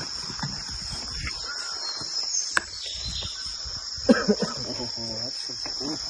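A chorus of insects droning steadily at a high pitch, with people's voices briefly about four seconds in.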